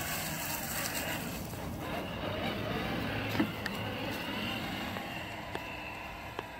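Battery-powered Traxxas RC truck driving over the ground, its electric motor and drivetrain running with tyre noise. A sharp knock comes about three and a half seconds in.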